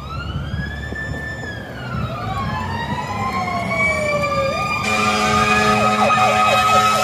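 Fire engine siren wailing up and down, with a second siren tone slowly climbing, getting louder as the engine approaches. About five seconds in, a steady low, many-toned blast starts over it, like the engine's air horns.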